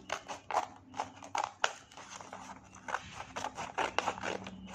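Scissors cutting through a paper package: a quick run of sharp snips, then softer paper crinkling and rustling.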